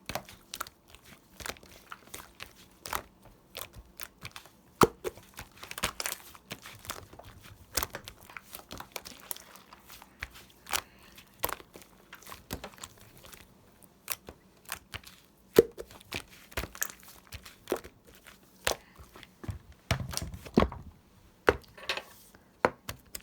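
Slime being squeezed, stretched and poked by hand, giving off irregular sharp clicking and crackling pops.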